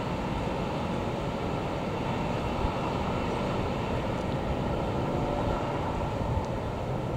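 Steady rumble of a KAI passenger train's coaches rolling on the rails as the rear of the train passes.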